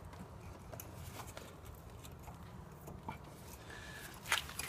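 Faint metal clicks and scrapes of a tie-rod-end puller being worked against a car's steering knuckle and tie-rod end as it is pushed under the rubber boot. A few sharper metallic clicks come near the end.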